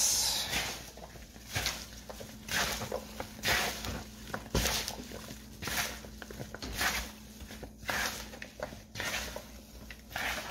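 Hands massaging chopped kale dressed with olive oil in a plastic bowl, the leaves rustling and squishing as they are squeezed about once a second to soften them.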